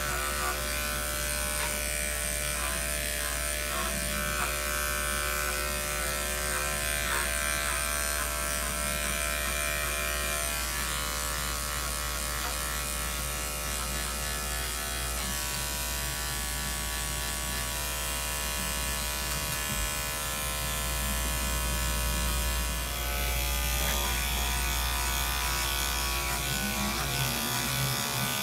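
Corded electric dog-grooming clippers running steadily as they shear through a dog's coat. Near the end the tone shifts a little.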